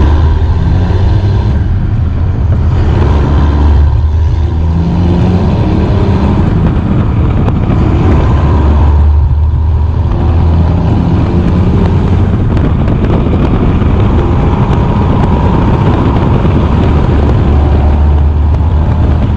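2001 Dodge Ram's 5.9 Cummins turbo-diesel inline-six pulling hard down the road while trailing black smoke, heard close from outside the truck. The loud engine sound dips briefly about two, four and nine seconds in.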